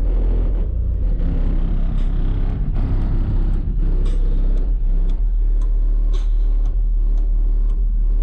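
Four Skar ZvX 15-inch subwoofers in a ported box tuned to 32 Hz, playing bass-heavy music loudly, a deep steady bass note dominating, with a few sharp ticks over it.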